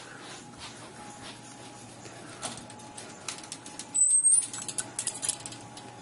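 A pet parrot gives a brief, high chirp about four seconds in, amid scattered clicks and rustles.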